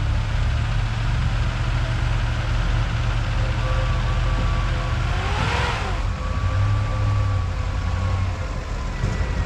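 Truck engine idling steadily, with a brief rush that swells and fades about five and a half seconds in.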